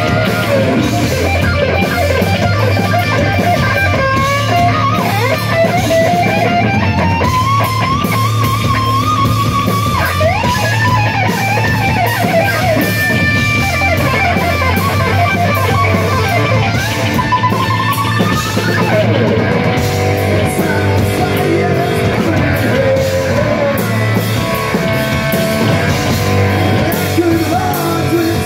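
Rock band playing live and loud: distorted electric guitar, bass guitar and drum kit. A lead guitar line bends and wavers in pitch over the first half.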